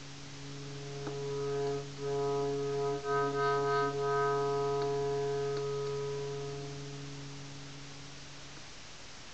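Electronic tones: a steady low drone joined, about a second apart, by several synthesizer-like notes that stack into a chord. The chord then fades away over the last few seconds.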